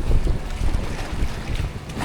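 Wind buffeting the microphone over rushing river water around a raft, with an uneven, gusty low rumble.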